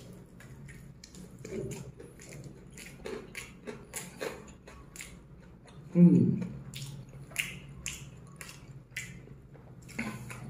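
Close-up chewing of a crispy fried chicken drumstick: many small crunching clicks of the coating between the teeth. About six seconds in, a short hum of the voice that falls in pitch.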